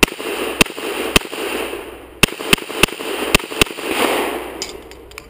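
Semi-automatic pistol firing eight shots in a timed IDPA course of fire: three evenly spaced shots, a pause of about a second, then five quicker shots, with a rushing noise between them.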